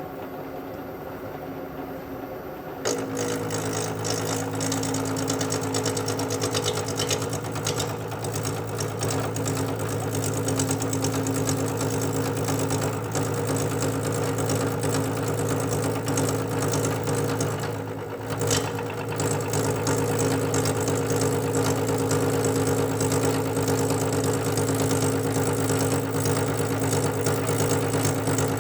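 Machine tool running with a steady motor and spindle hum. About three seconds in, the cut starts, and a louder, steady metal-cutting noise with a hiss joins the hum. It dips briefly about two-thirds of the way through.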